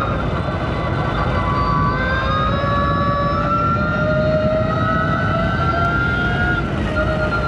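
The SIERRA Echo race car's engine under power, heard from on board as a whining note that rises slowly through a long pull and eases off briefly near the end. Heavy wind and road rumble run underneath.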